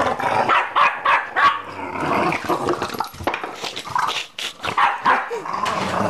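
Small dog barking and growling in quick, irregular yaps: a territorial warning at another dog in its house.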